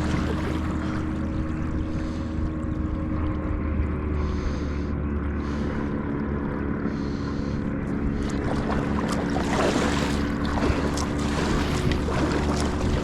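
A kayak under way while trolling: a steady, even-pitched hum from its drive, with water splashing along the hull and wind on the microphone, the splashing busier in the second half.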